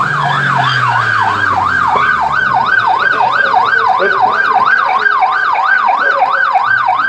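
Police car siren in a fast yelp, its pitch sweeping up and down about three times a second.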